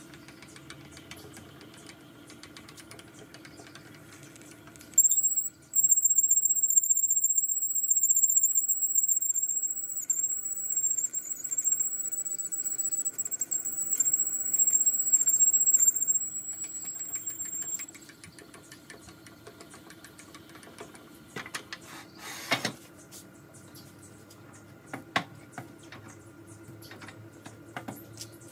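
Wood lathe running while a drill bit in a tailstock chuck bores into the end grain of a spinning turned-wood vase. About five seconds in, a loud high-pitched squeal from the bit rubbing in the hole starts, wavers slightly, and stops suddenly some thirteen seconds later. The lathe's steady hum and a few clicks follow.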